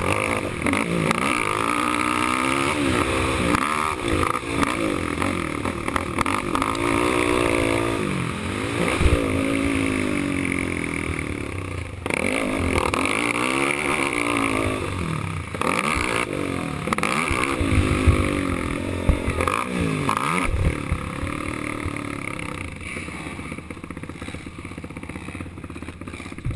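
450-class race quad's single-cylinder four-stroke engine, heard from the machine itself, revving high and dropping back again and again as the throttle is worked over the track. It runs quieter over the last few seconds as the quad slows.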